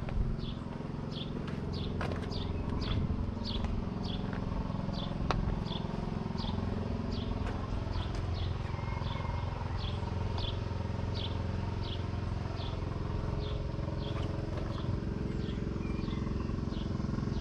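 Four-cylinder diesel engine of a Deutz-Fahr 5115 DF TTV tractor idling with a steady low hum. Over it, a bird chirps again and again, about twice a second, each chirp a short falling note.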